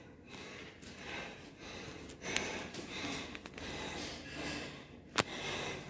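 A woman breathing heavily and panting, out of breath from climbing many flights of stairs, with one sharp click about five seconds in.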